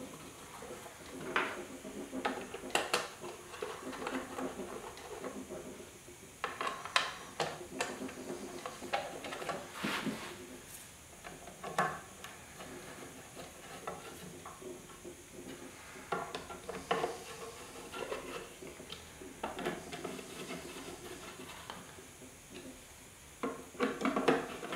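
Irregular clicks, taps and light scrapes of hard plastic and small metal parts as the plastic cover is handled and fitted back onto the arm of a Delta 16-inch variable speed scroll saw, with a denser run of clicks near the end as a screw is started with a screwdriver.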